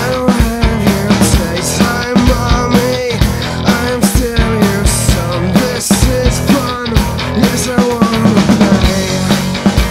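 Rock music with a steady drum-kit beat.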